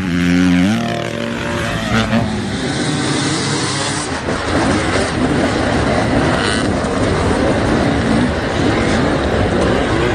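Off-road vehicle engine revving hard, its pitch climbing in steps over the first couple of seconds, then a loud, rough running noise as it drives on.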